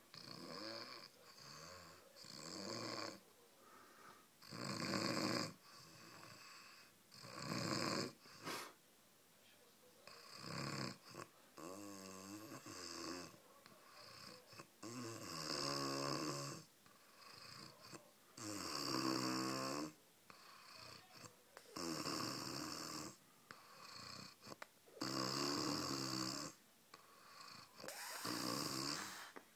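Snoring: a series of long snores, one every two to three seconds, about ten in all, several with a pitched tone that wavers.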